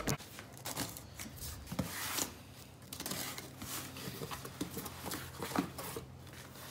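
Cardboard shipping box being opened by hand: its flaps pulled back and rubbed, in a run of short scrapes and rustles, with a denser scratchy stretch about two seconds in.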